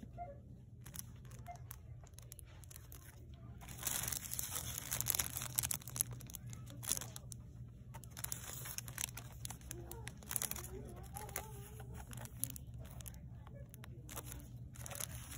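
Crinkling and rustling handling noise over a steady low hum, densest for a couple of seconds about four seconds in, then scattered crackles.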